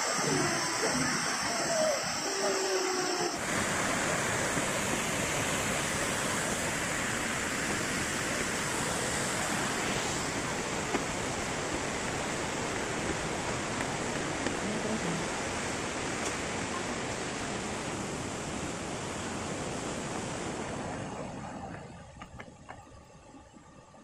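Waterfall crashing into a plunge pool, a steady rush of water. It fades away near the end, leaving a quieter background with a few faint clicks.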